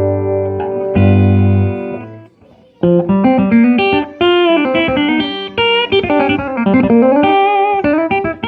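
Electric guitar, a swamp ash Telecaster, played through Louis Electric tweed-style tube amps. A held chord rings, a second chord is struck about a second in and fades away, and after a brief gap a quick run of single notes with string bends starts about three seconds in.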